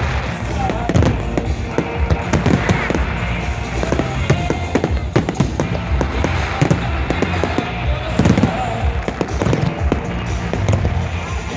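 Fireworks going off in quick succession, many sharp bangs and crackles, over music playing through loudspeakers.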